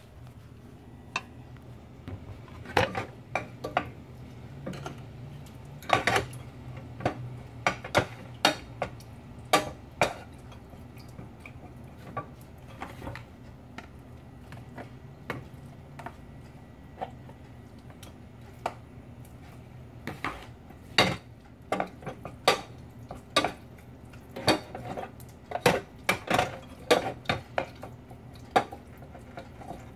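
A spatula stirring and breaking up minced chicken simmering in a little water in a metal pot, with irregular knocks and scrapes against the pot, over a low steady hum.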